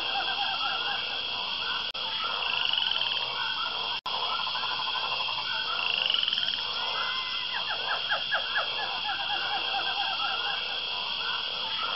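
A chorus of frogs croaking, many short repeated calls overlapping, over a steady high buzz. The sound briefly cuts out twice.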